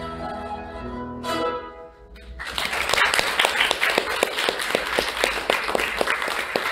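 Qanun duet ending a melody on a final plucked chord that rings out and fades, followed about two and a half seconds in by an audience applauding, louder than the music.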